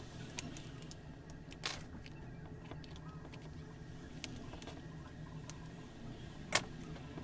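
Hand tools clicking and tapping against a chainsaw and a metal workbench during reassembly, with one sharp clack near the end, over a steady low hum.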